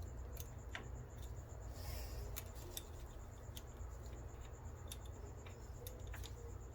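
Faint, scattered metallic clicks and taps as 4L60E transmission clutch plates and drum are handled and seated, over a steady low hum.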